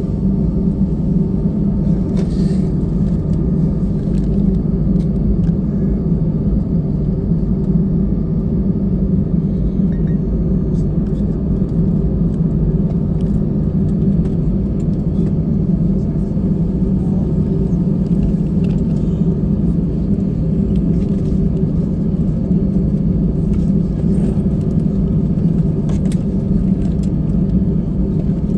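Steady low rumble of an Airbus A320's jet engines at taxi idle, heard inside the cabin as the aircraft rolls along the apron.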